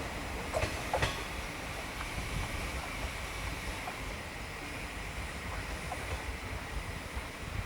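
Train rolling along the track with steady rumbling wheel noise, and a couple of sharp clacks from the wheels about a second in.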